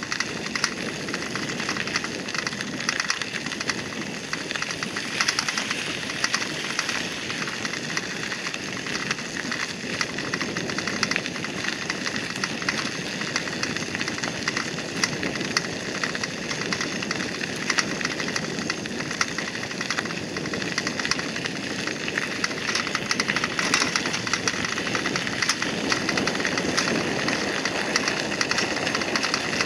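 Bicycle rolling along a gravel path: a steady crunch of tyres on grit and small stones, dense with small clicks.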